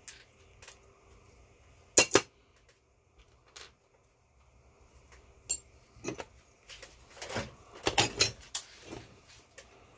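Metal hand tools and parts clinking and knocking on a work table during disassembly: a loud double knock about two seconds in, then a run of clinks and rattles in the last few seconds.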